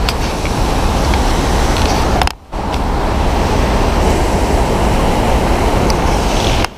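Loud, steady rush of a waterfall's falling water and spray, cutting out for a moment a little over two seconds in.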